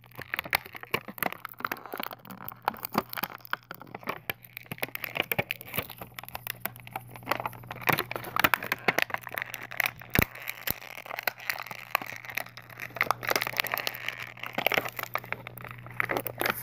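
Plastic toy packaging crackling and crinkling in dense, irregular clicks as hands work it apart to free the toy.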